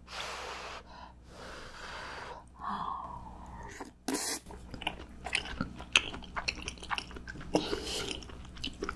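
Close-miked eating of omelet rice. A few breathy puffs of air come first, then a sharp click about four seconds in, then moist chewing with many small irregular clicks.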